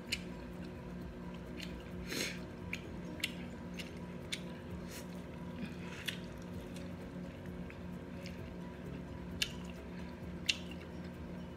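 Close-up eating sounds: wet smacks, squishes and chewing as corn on the cob is dipped in butter sauce and bitten, with scattered sharp lip smacks. A low steady hum runs underneath.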